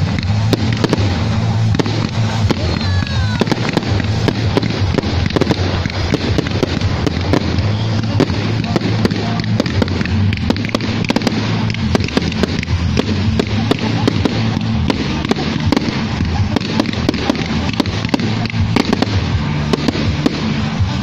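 Fireworks going off without a break: dense, rapid crackling and popping from sparking fountains and crackling aerial effects. Music plays underneath.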